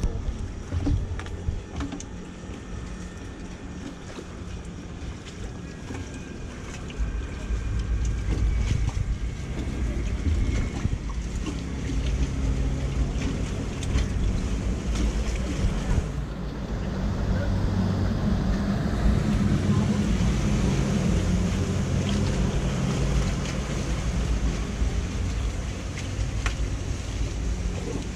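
Floodwater swirling and draining into a clogged street drain, with wind noise on the microphone; the rushing grows louder about a quarter of the way in and again near the middle.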